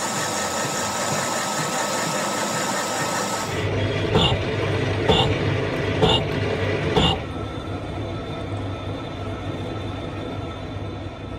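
Machine-shop sounds. First a metal lathe runs steadily while its tool cuts a steel gear blank. Then, from about four seconds in, a gear-shaping machine cuts the teeth with four sharp strokes about a second apart, and a quieter steady machinery hum follows.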